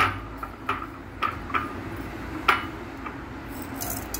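Light, irregular clinks of kitchenware against a stainless steel pot holding dry rice, about five in all, each with a short ring. Near the end comes a brief hiss, like dry grains shifting.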